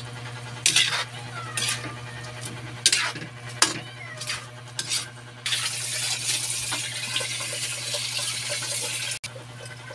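Metal ladle scraping and clinking against a wok as chicken pieces are stirred in their cooking liquid, about half a dozen clinks. From about halfway, a steady sizzling hiss that cuts off suddenly near the end, over a low steady hum.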